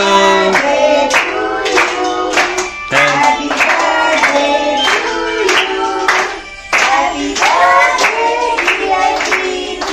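A group of children and a woman singing a birthday song together, clapping along in time.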